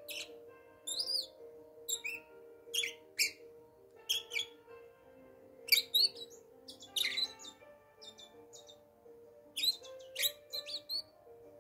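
Bourke's parakeets chirping: short, sharp high chirps at irregular intervals, often several in quick succession. Soft background music with slow, held notes plays underneath.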